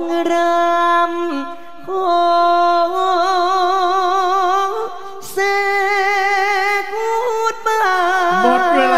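A single voice singing unaccompanied in Thai likay style: long held notes with a wavering vibrato, sliding between pitches, with a few short breaks between phrases.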